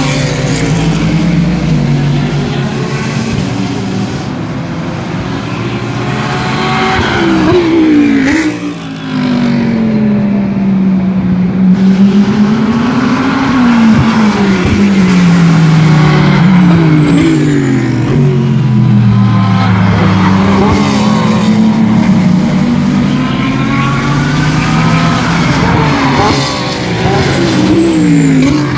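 GT3 race cars running past one after another, engines revving up and down through gear changes, with several cars' engine notes overlapping.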